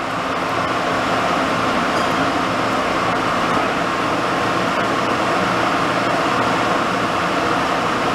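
WMW Niles DPS1 engine lathe running under power at about 45 RPM, a steady hum of drive motor and gearing. It grows louder in the first half second, then holds level.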